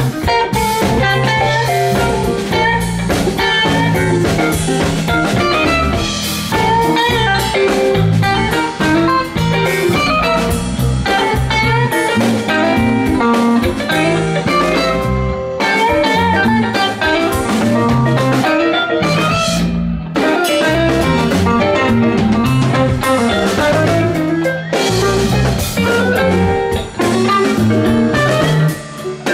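Live rock band playing an instrumental jam: electric guitar lines over keyboard, bass guitar and drum kit.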